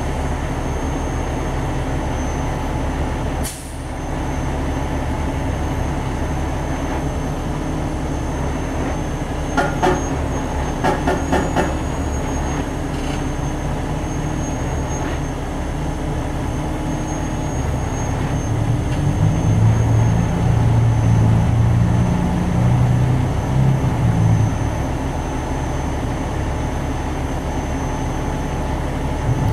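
Heavy diesel engine running steadily, with a cluster of sharp clicks around ten seconds in and a louder, deeper rumble from about twenty seconds in.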